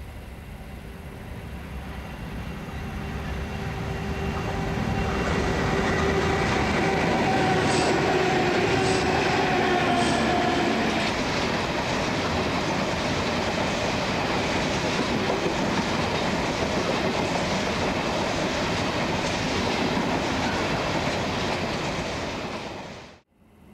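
NSW 81 class diesel-electric locomotives hauling a coal train pass close by. The engines' steady drone grows louder as they approach, then gives way to a steady rumble and clatter from the coal hopper wagons rolling past. The sound cuts off suddenly near the end.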